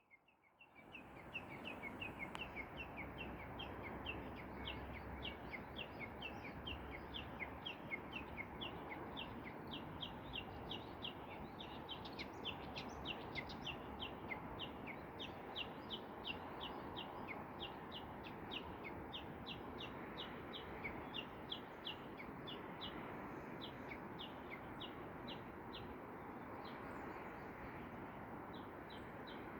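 A small songbird calling in a long, evenly repeated series of short high chirps, about three a second, over a steady background hiss.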